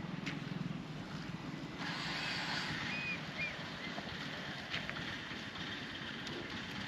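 Outdoor background noise with wind on the microphone, a few faint clicks, and some brief faint high chirps near the middle.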